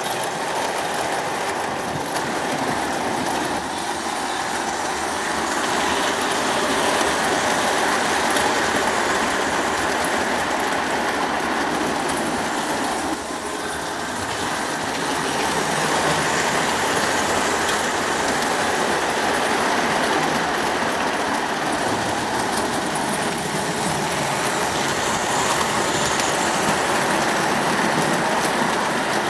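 O gauge model trains running round the layout: a steady rumble of metal wheels rolling on the rails and over rail joints, with motor noise. It dips briefly about 13 seconds in, then carries on as before.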